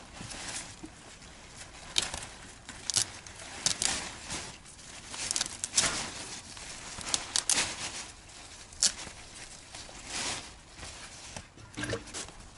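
Horseradish leaves and stalks rustling and crackling as gloved hands handle and pull them apart, in short irregular bursts.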